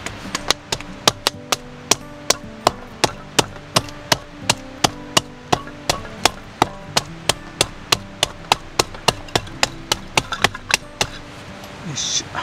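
A metal-headed hand tool strikes thin kindling sticks lying on a wooden block in steady, sharp blows, about three a second. The blows crush the wood to raise fibres, a quick way to make a feather stick that catches fire easily. The blows stop about 11 seconds in, followed by a short rustle.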